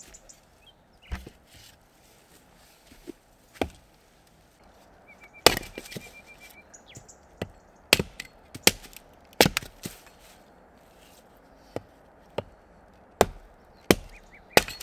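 Hatchet chopping and splitting a short log set on a wooden chopping block. About nine sharp wooden knocks come at uneven intervals, faint at first and louder from about five seconds in, some in quick pairs.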